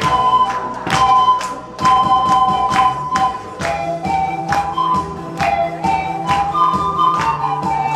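Pan flutes playing a melody in two-part harmony over accompaniment with a low sustained bass and a steady percussion beat.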